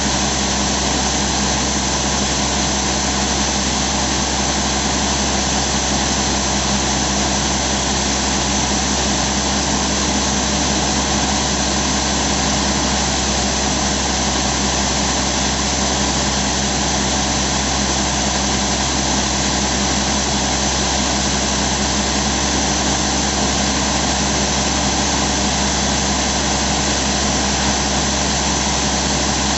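Crawler-mounted quarry rock drill running: a loud, steady machinery drone with a constant hum and a high hiss that does not change.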